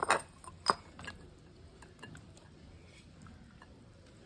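Hands squeezing and rinsing pumpkin seeds in a bowl of water: two sharp wet squelches in the first second, then faint wet clicks and drips as the seeds are worked free of the pulp.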